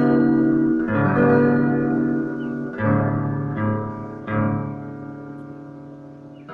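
Guitar chords strummed through a small practice amplifier that has just been repaired and now works. Four chords are struck about a second apart, each left to ring and fade, and the last one rings out for about two seconds.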